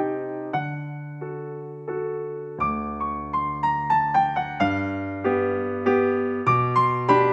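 Background music played on an electric piano: gently struck notes, each fading out, over held bass notes, with a falling run of notes a few seconds in.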